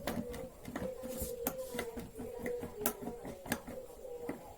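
Irregular clicks and light knocks from parts and tools being handled, over a faint wavering hum.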